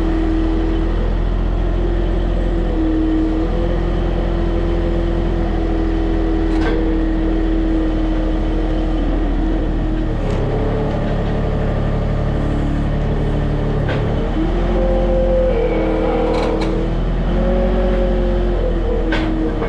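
Farm loader's diesel engine running steadily as the machine is driven up to the straw bales and its bale grab is worked, the engine note shifting in pitch a few times. A few short knocks from the machine and attachment.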